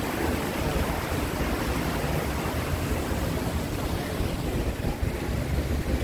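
Steady rushing splash of water running down a rock cascade fountain, over a continuous low rumble.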